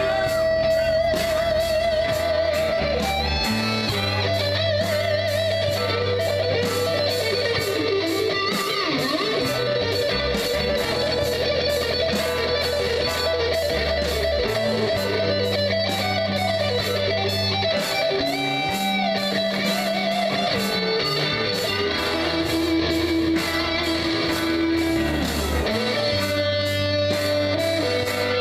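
Live rock band playing: an electric guitar lead with bent notes and wide vibrato over held bass notes, with cymbals and drums keeping a steady beat.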